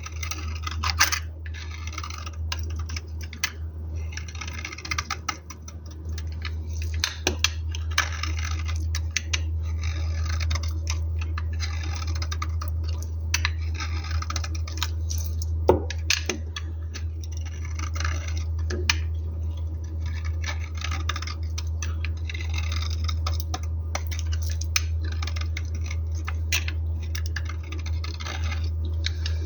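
A knife cutting through bars of soap in repeated scraping, crunching strokes about every second and a half, with a few sharp clicks as pieces break off. A steady low hum runs underneath.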